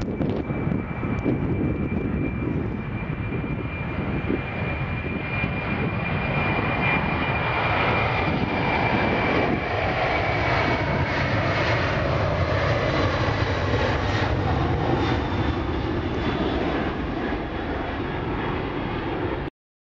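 Boeing 747-400's four jet engines at take-off power: a steady loud roar with a high whine that slowly falls in pitch and fades out about ten seconds in. The sound cuts off abruptly just before the end.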